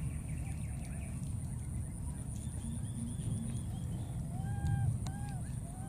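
Baby macaques crying with short, arched whimpering coo calls, several in quick succession near the end: the distress calls of young infants.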